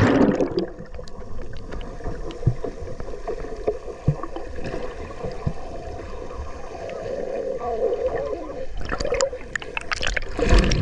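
Water sloshing and gurgling around the camera while swimming. A loud splash comes at the start and more splashing near the end, over a steady hum.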